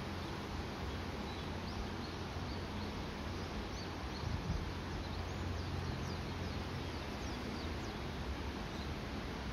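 Small birds chirping in many short, high notes over a steady low rumble and hiss of distant road traffic. The rumble swells a little about four seconds in, as of a truck passing.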